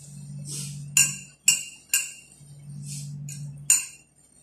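Dishes clinking: a spoon and plate knocking together as rice is worked by hand on the plate, three sharp clinks about half a second apart, then one more near the end.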